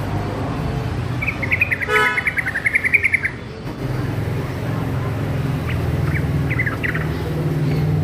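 Young yellow-vented bulbul (trucukan) singing a rapid chattering phrase of many quick notes from about a second in, lasting about two seconds, then a few short scattered notes near the end. A low steady hum runs underneath.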